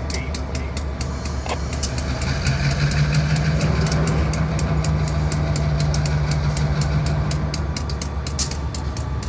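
Freight cars rolling slowly through a grade crossing over a steady low diesel rumble, with a low engine drone holding for several seconds in the middle. The crossing warning bell rings rapidly and evenly throughout.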